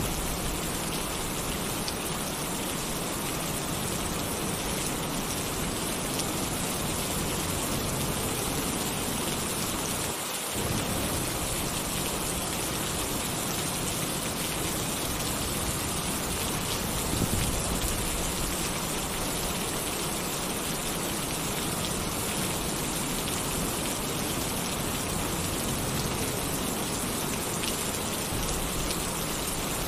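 Heavy rain drumming steadily on a metal tin roof, with a low roll of thunder swelling up about halfway through and fading back into the rain.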